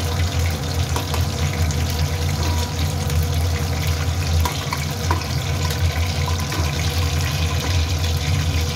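Pointed gourd pieces frying in hot oil in a non-stick pan, a steady sizzle, with a few light clicks of a metal spatula as the pieces are lifted out.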